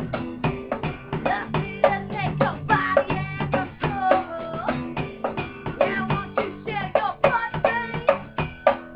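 Live band jamming: drum kit and cymbals struck in a dense, steady run of hits under acoustic and electric guitars, with a woman's voice singing over it through the middle.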